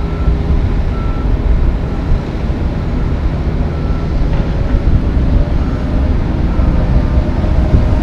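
Concrete mixer truck backing up, its heavy diesel engine running with a low rumble. A backup alarm beeps about once a second above the engine.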